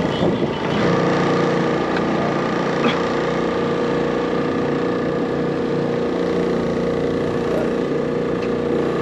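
A small engine on a boat running at a steady, unchanging speed: a constant hum with a couple of faint ticks.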